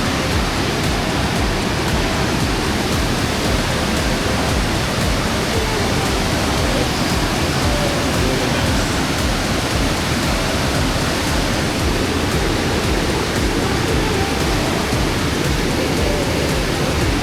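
Waterfall: a loud, steady rush of falling water, even and unbroken.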